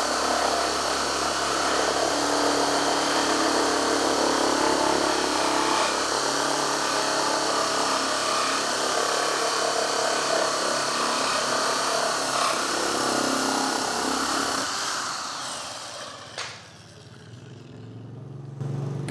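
Electric drill turning a large Kodenki hole saw through a plywood board, running steadily at high speed as the saw cuts. About 15 seconds in the cut finishes and the drill winds down, with one short knock as it stops.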